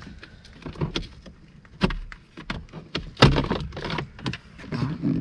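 Plastic clicking and scraping as a car's cabin air filter is pulled by hand out of its housing behind the glovebox. There are several sharp clicks, with a louder, longer scrape about three seconds in.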